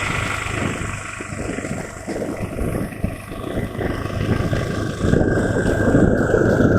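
Motorcycle engine and wind noise while riding, recorded through an action camera's microphone. The level rises and falls unsteadily, louder again from about five seconds in, which the uploader blames on the camera's automatic noise reduction.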